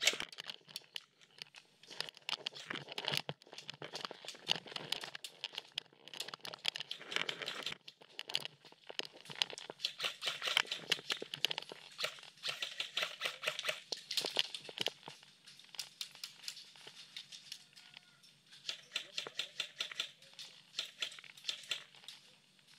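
Airsoft guns firing: a dense, irregular clatter of sharp clicks in bursts, over steady rustling.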